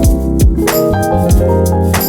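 Instrumental background music with keyboard, bass and a drum kit keeping a steady beat.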